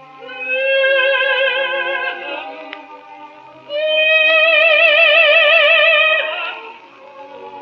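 Operatic dramatic soprano holding two long high notes with wide vibrato, the second louder, over a quiet orchestra, in an old live opera recording.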